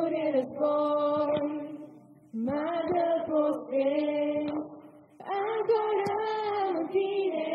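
Church worship singing: a group of voices sings a slow song in three long phrases with held notes and short breaths between them.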